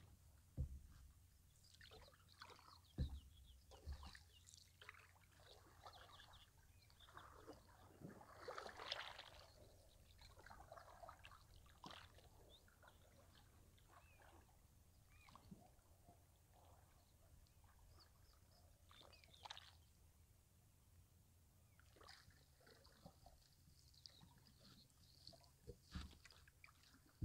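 Faint sounds of a canoe being paddled: water trickling and dripping off the paddle, small splashes at the strokes, and a few soft knocks in the first seconds.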